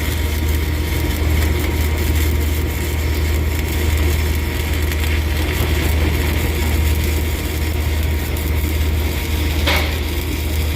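Arc welding: the arc crackles steadily over a constant low hum, with one short sharp click near the end.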